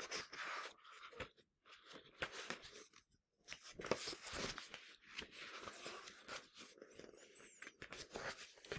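Faint irregular rustling and scraping of a paperback picture book being handled close to the microphone.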